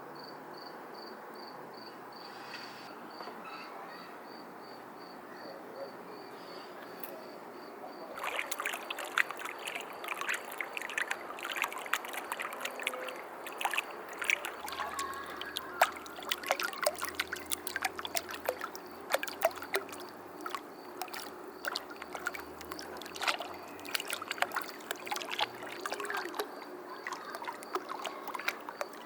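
An insect, cricket-like, chirping steadily about twice a second. From about eight seconds in, dense irregular crackling and clicking comes in and becomes louder than the chirping.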